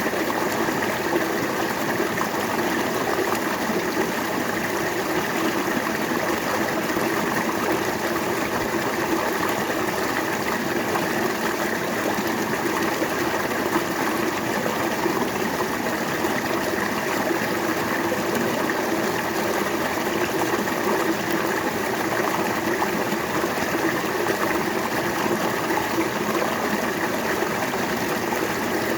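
River water flowing over rocks in a steady, continuous rush.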